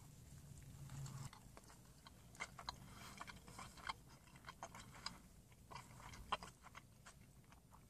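Faint chewing of a mouthful of cheesesteak sub, with small mouth clicks scattered throughout.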